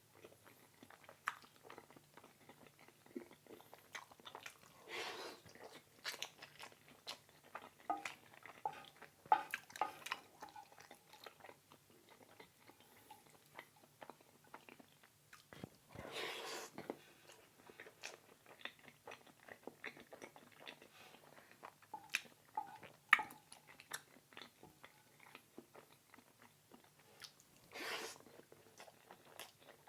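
Close-up eating sounds: a person biting and chewing food, with soft crunches and many small mouth clicks, and a few louder, longer bites about five seconds in, around sixteen seconds and near the end.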